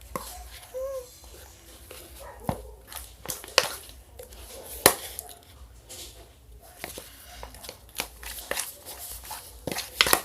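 Thick homemade slime being stirred hard in a pot: irregular sticky clicks and snaps as the mass pulls and comes unstuck from the container, with the loudest snap about five seconds in.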